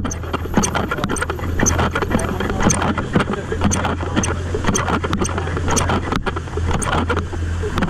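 Footsteps on a concrete sidewalk, about two steps a second, picked up by a body-worn action camera, over a steady low hum of city street noise.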